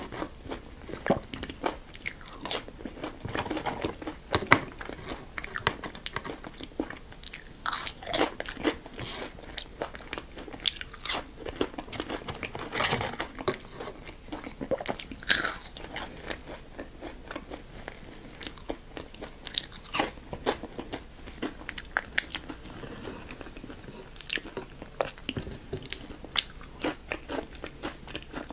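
Close-miked eating: a person biting into and chewing crunchy food, with irregular crisp crunches and wet mouth clicks throughout.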